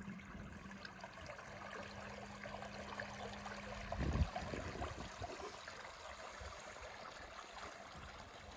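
Small waves lapping and trickling at the water's edge, with a low steady hum that stops about four seconds in, followed at once by a single low thump.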